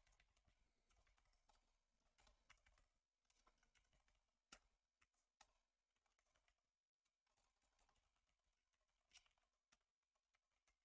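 Near silence broken by a few faint, scattered computer keyboard keystrokes, the loudest about four and a half seconds in.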